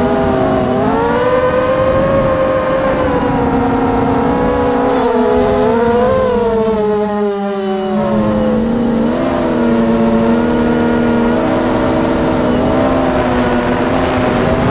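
Brushless motors and propellers of a 250-size FPV racing quadcopter, heard from the onboard camera. The whine rises and falls with the throttle, drops away briefly about halfway through, then picks up again.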